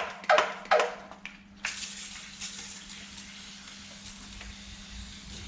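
Aerosol brake cleaner spraying in a long, steady hiss that starts about a second and a half in, after a couple of short knocks.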